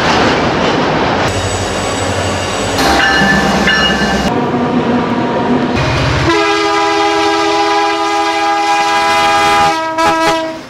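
Freight trains rumbling and clattering along the rails in short cut-together snatches, then a diesel locomotive's multi-note air horn blowing one long steady blast from about six seconds in, with a short second blast near the end.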